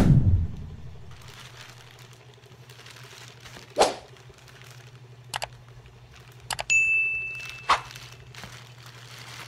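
A plastic courier pouch is handled and crinkled on a wooden table, with a few sharp clicks and taps. It opens with a deep booming hit that dies away, and about seven seconds in a short bright bell-like ding rings for under a second; a low steady hum runs underneath.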